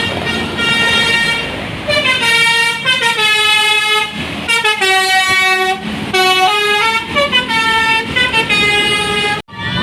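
Bus 'telolet' multi-tone horn playing a jingle: a string of loud, steady horn notes that step up and down in pitch in quick succession, cutting off suddenly near the end.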